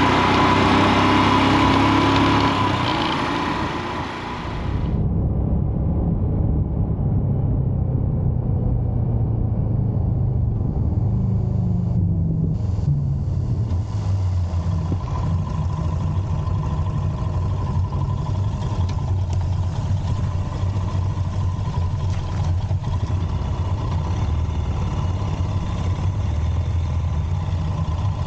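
Royal Enfield Himalayan's single-cylinder engine running as the motorcycle rides, with loud wind and road noise at speed for the first few seconds. About five seconds in the wind noise drops away and the engine carries on at low speed, its note falling as the bike slows near the middle.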